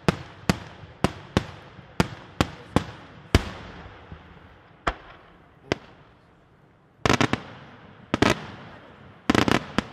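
Daylight fireworks shells bursting in the air: a string of sharp single bangs about every half second, then sparser bangs, and from about seven seconds in, quick clusters of rapid crackling reports.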